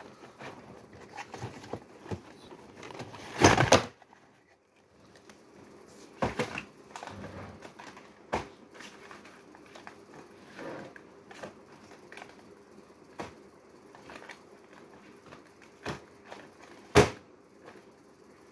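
Handling noise: scattered rustles and light knocks from cloth brushing and things being moved close to a phone microphone. There is a loud rustling burst about three and a half seconds in and a sharp knock near the end.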